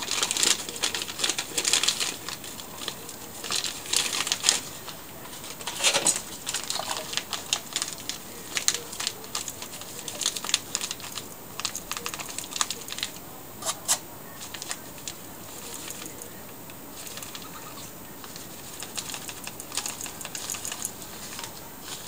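Plastic bag of powdered sugar crinkling and rustling as it is handled and poured from, with irregular small clicks and taps; busier in the first half, quieter in the middle.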